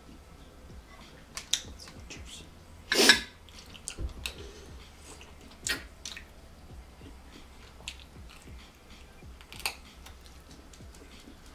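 Close mouth sounds of eating a blue-lip mussel off its shell: scattered wet smacks and chewing clicks, with one louder noisy burst about three seconds in.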